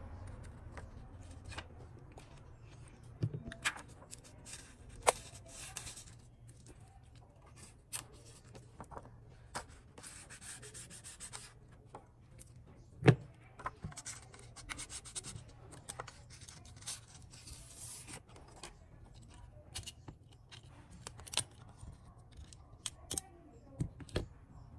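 Plastic opening card scraping and rubbing along the edge of a Samsung Galaxy A8+ display as it is pried away from the metal midframe. Small clicks and taps run through it, with one sharp click about 13 seconds in.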